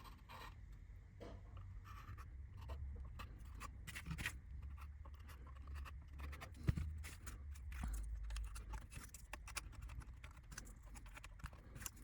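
Hands handling and pressing small laser-cut kit parts: scattered light taps, clicks and scratching over a low rumble, with one sharper knock a little past halfway.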